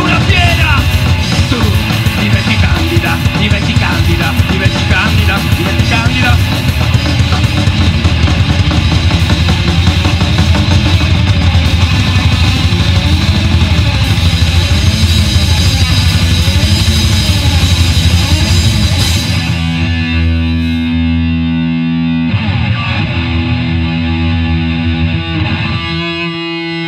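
Live rock band playing loud: electric guitars, bass guitar and drum kit. About 19 seconds in the drumming stops and held guitar and bass chords ring on.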